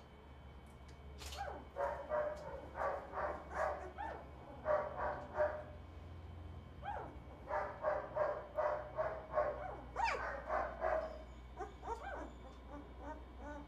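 A litter of newborn puppies squeaking and whining: short high-pitched cries in quick runs of several a second, coming in bursts with brief pauses between them.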